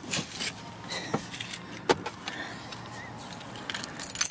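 A few light, sharp clicks and rustles of handling over a faint steady hiss.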